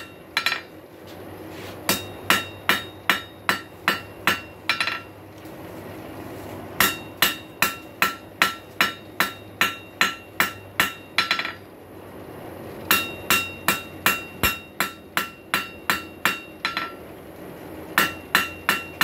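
Ball-peen hammer striking a rail spike on a steel anvil to knock down its corners while forging. Runs of sharp ringing blows come at about two a second, with short breaks between the runs.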